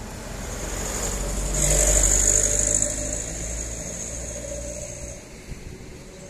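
Heavy truck's diesel engine passing close by. It grows louder to a peak about two seconds in, then fades away.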